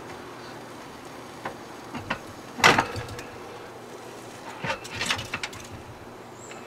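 Metal clinks and knocks from the wire cooking racks of a Masterbuilt electric smoker as ribs are laid on them: a few light clicks, one louder clank about two and a half seconds in, then a cluster of light clinks around five seconds.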